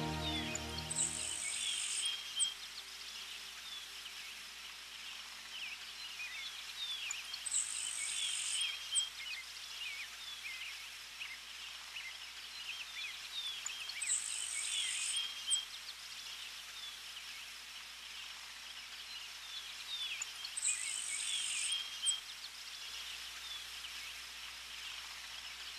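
Soft instrumental music fading out in the first two seconds, leaving a recorded nature ambience: many short bird chirps and a high buzzing trill that repeats four times, about every six and a half seconds, over a faint steady hiss.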